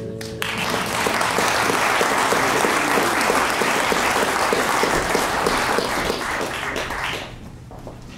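Theatre audience applauding, starting about half a second in and dying away about seven seconds in.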